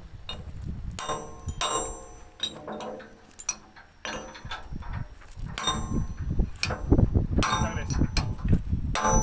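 Hammer blows on the steel of an excavator bucket: a string of irregular, sharp metallic clangs, each ringing briefly.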